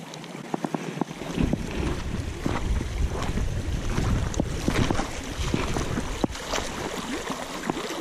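Shallow creek water running over gravel, with wind rumbling on the microphone from about a second in and a few scattered knocks.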